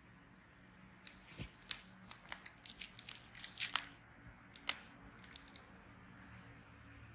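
Handling noise from the acne extraction work: a run of small, irregular clicks and crackles, densest about three to four seconds in, then tailing off, over a faint low hum.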